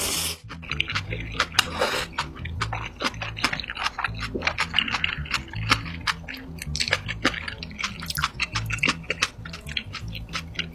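Close-miked eating of Samyang instant noodles: many quick wet chewing clicks, with two longer hissing sounds near the start and about two seconds in. Background music with a steady bass pattern plays throughout.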